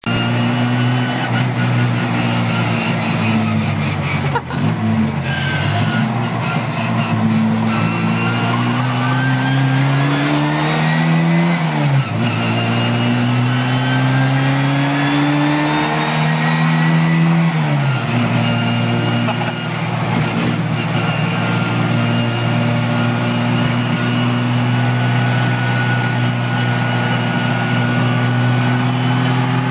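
Classic Mini's A-series four-cylinder engine pulling through the gears, with the high-pitched whine of its straight-cut drop gears, heard from inside the cabin. The pitch climbs and drops back at three gear changes, then holds steady at cruising speed.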